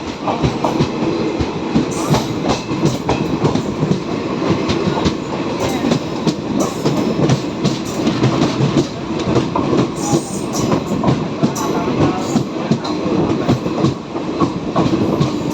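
Train hauled by two WAG9 electric goods locomotives running along the track: a steady rumble with dense, irregular clicks and clacks of wheels over rail joints.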